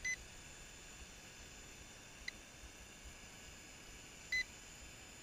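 Handheld toy RC transmitter beeping as it is switched on: a short high beep at the start, a faint blip a little after two seconds, and another short beep a little over four seconds in.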